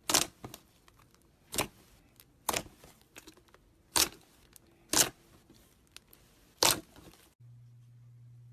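Slime being squeezed and mixed by hand, giving sharp pops and clicks of trapped air about once a second, six loud ones in all, with small crackles between. About seven seconds in they stop abruptly and a steady low hum takes over.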